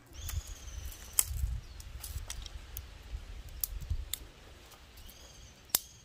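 Dry twigs and sticks snapping and clacking as they are broken and handled for kindling, with scattered sharp cracks, the loudest about a second in and near the end. A low rumble of handling runs underneath. A faint high whistled call sounds twice.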